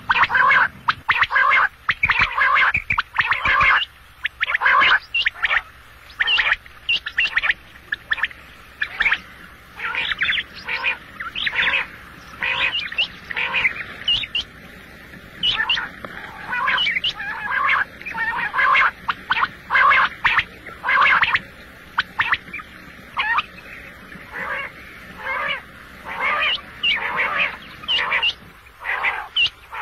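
Quail calling over and over: short, sharp notes in quick clusters, one group after another with brief pauses between.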